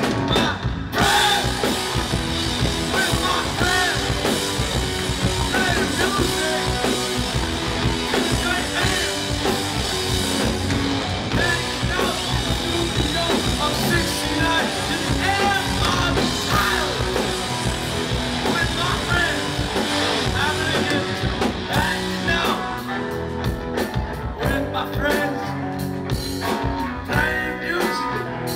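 A rock band playing live, with electric guitar over a steady beat and sung vocals.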